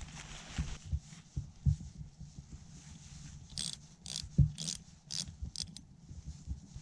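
Small wrench turning a long hardware wood screw into the ground as a tarp anchor: a few short rasping scrapes about halfway through, among low knocks.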